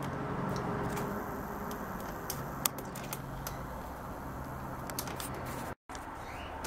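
Steady background noise with a faint low hum and a few light, scattered clicks, broken by a short dropout near the end.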